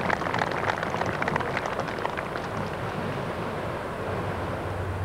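Gallery of golf spectators applauding a shot played onto the green. The clapping dies away about halfway through, leaving wind noise.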